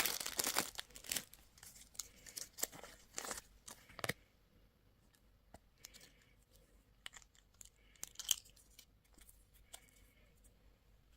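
Candy wrapper crinkling and tearing as it is unwrapped: busiest in the first second or so, then scattered crinkles and light clicks that thin out.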